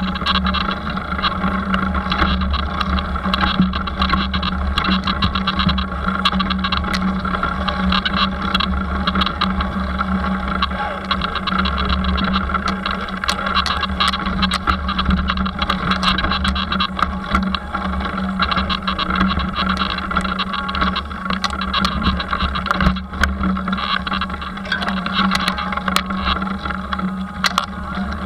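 Rigid road bike on 700c wheels ridden over a bumpy dirt trail: a steady rumble and hum with many small knocks and rattles as the unsuspended bike hits the rough ground.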